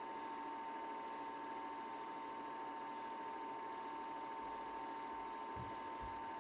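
A small machine running with an even whir and a steady high-pitched tone, with no recorded sound from the scene: the soundtrack of a silent 8mm home-movie transfer.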